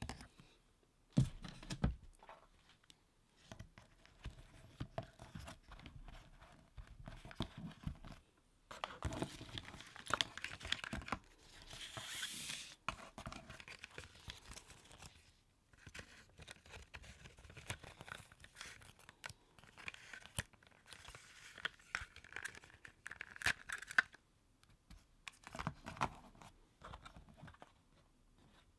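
Handling of a cardboard stylus box and its contents: a paper manual rustling and sliding, with scrapes and a few light knocks as the pen and cable are laid in and the box is moved.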